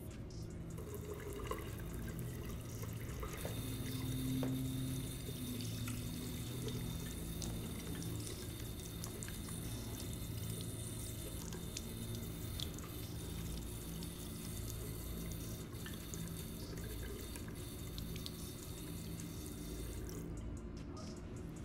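Water running from a faucet into a washroom sink, a steady hiss that stops about 20 seconds in.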